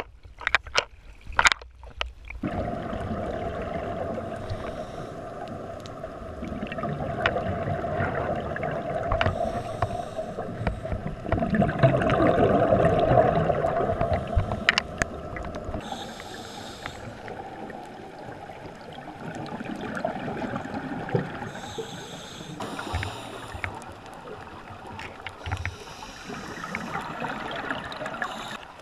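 Scuba diving heard through an underwater camera: water sloshing and splashing as the camera goes under, then a diver breathing through a regulator, with a hiss about every five or six seconds and the rush and bubbling of exhaled air between them.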